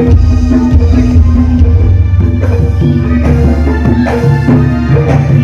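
Javanese jaranan gamelan ensemble playing loudly through a sound system, with kendang hand drums struck in a steady rhythm over repeated metallophone notes and a deep, sustained bass tone.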